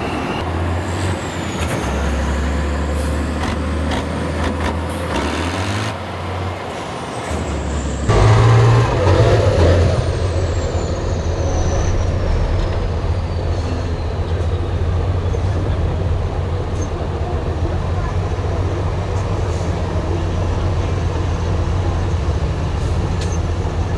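Tatra six-wheel-drive trial truck's diesel engine running hard under load off-road, pouring black smoke. It is loudest about a third of the way in, and after that a high whine falls slowly in pitch over several seconds.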